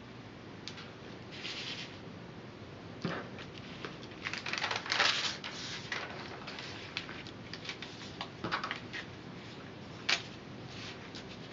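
Crackling and rustling of a paper-backed sheet of flattened barley straws being handled, lifted and flexed, with scattered small clicks and taps. It is loudest about halfway through, with one sharp click near the end.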